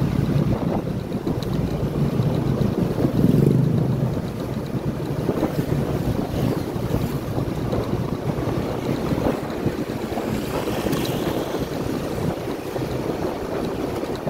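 Wind buffeting the microphone on a moving first-generation Yamaha NMAX scooter, over the steady running of its single-cylinder engine and road noise. The buffeting swells loudest about three seconds in.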